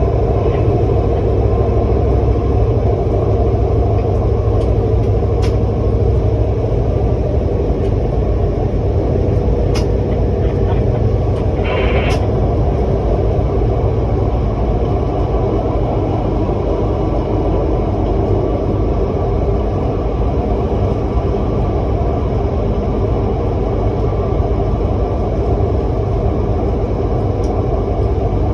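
SRT Red Line electric commuter train running, a steady low rumble, with a few faint clicks and a brief high squeal about twelve seconds in.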